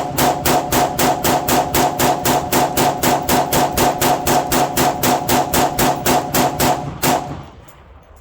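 Rapid semi-automatic fire from a 3D-printed Orca AR-15 rifle in 5.56, an even string of about three to four shots a second. The shots stop about seven seconds in as the magazine runs empty.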